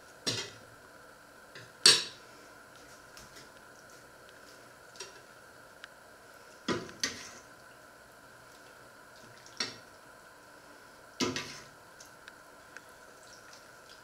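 Metal ladle clinking against a stainless steel stockpot and a plate as soup is ladled out: about six sharp separate clinks, the loudest about two seconds in, over a faint steady hum.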